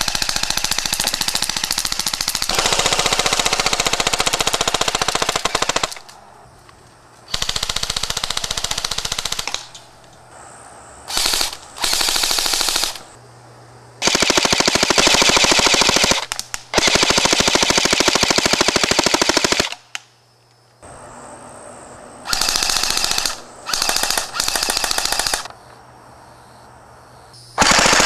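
Echo 1 MP5J airsoft electric gun firing strings of full auto at about 800 rounds a minute. About ten bursts run from half a second to six seconds long, with short pauses between them.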